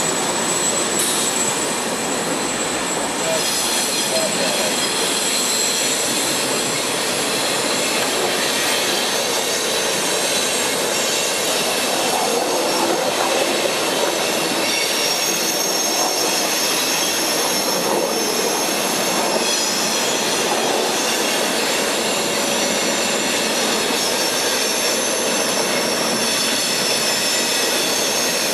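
CSX freight train of refrigerated juice boxcars rolling past on steel rails in a steady, continuous rush of wheel and car noise, with thin high-pitched wheel squeal held above it.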